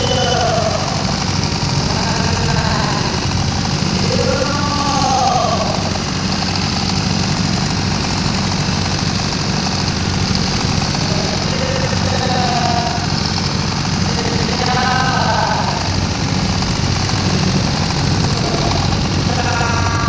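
Boat engine running steadily at a constant pace, a loud low drone, with brief snatches of voices over it now and then.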